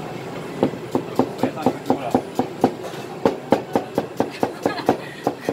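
Chinese cleaver chopping onion on a plastic chopping board: rapid, even knocks of the blade on the board, about four a second, starting about half a second in.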